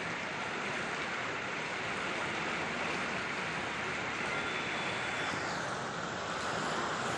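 Steady rushing of the fast-flowing Ganges river, an even wash of water noise with no breaks.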